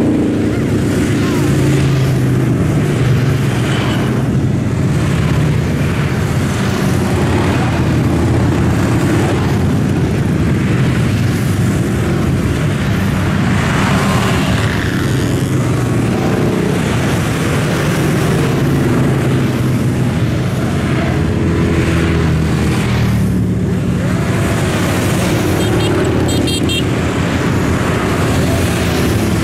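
Continuous road traffic of many motorcycles and cars streaming past, with overlapping engine notes that rise and fall in pitch as vehicles go by.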